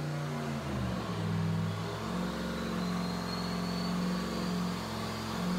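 Turbocharged 5.3 L LS V8 (L33) on an engine dyno, running steadily at low speed, with a faint high whine that rises slowly.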